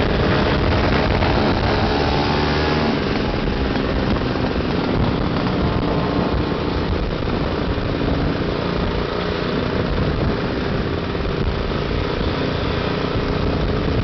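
Scooter engines running under way in a group ride, with road and wind noise. The engine note shows most clearly in the first few seconds, then the noise takes over.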